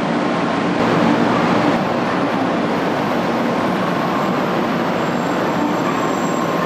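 Steady train noise on a Shinkansen platform: a constant rumble and hiss with a faint hum from the trains standing at the platform.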